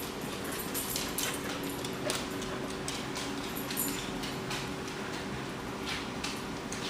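A dog moving around on a hard floor with scattered light ticks and clicks, typical of its nails clicking as it searches, over a steady low hum.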